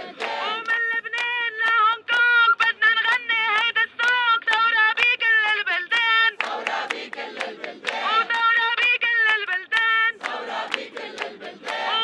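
A woman sings a protest song through a megaphone, which gives the voice a narrow, horn-like quality. A crowd claps along and joins in with massed voices at times, about six seconds in and again near the end.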